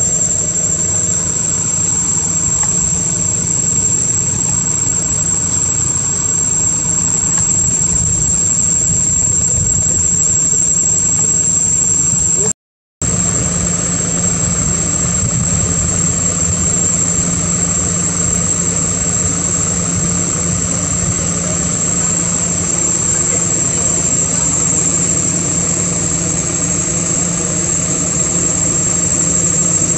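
A steady, loud, engine-like drone with a constant high-pitched whine over it, cut off briefly a little before halfway.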